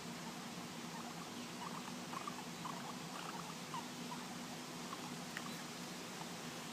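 Baby guinea pig making soft, short squeaks in quick little runs, faint over a steady background hiss; not wheeking, and of uncertain meaning.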